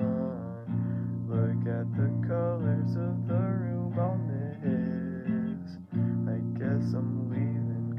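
Acoustic guitar music: strummed chords changing every second or so, with a sliding melody line above them.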